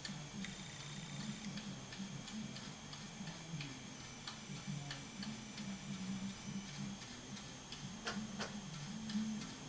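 Faint, irregular little clicks and taps of a fine paintbrush working oil paint on a plastic model submarine hull, several a second, with two sharper clicks about eight seconds in, over a low steady hum.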